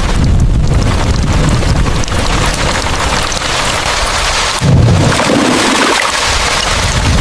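Heavy rain with deep rumbles of thunder, one swelling at the start and another nearly five seconds in.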